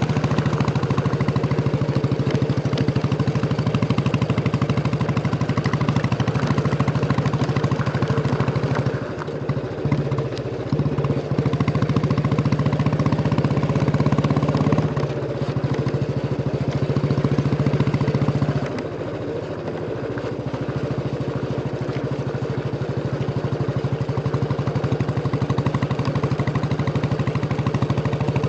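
Royal Enfield Bullet 350 single-cylinder engine and exhaust thumping steadily under way. The sound drops and surges briefly about nine seconds in, and eases off again for a couple of seconds about two-thirds of the way through before settling back to a steady run.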